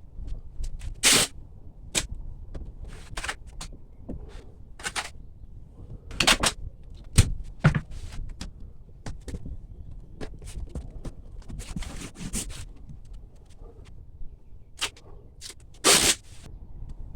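Irregular hands-on work sounds: short scrapes, knocks and clicks at uneven intervals, with a longer scraping stretch about two-thirds of the way through and a sharp knock about seven seconds in.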